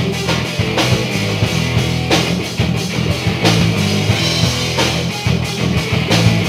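Live hard-rock band playing an instrumental passage: distorted electric guitars over a drum kit keeping a steady beat, with no singing.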